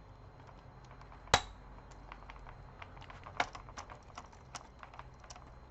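Irregular small clicks and taps of tools and plastic and metal parts being handled on a laptop during disassembly, with one sharp click about a second in and another a couple of seconds later.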